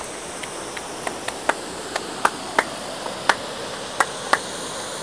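River water flowing steadily, with about a dozen sharp, irregular clicks and taps over it.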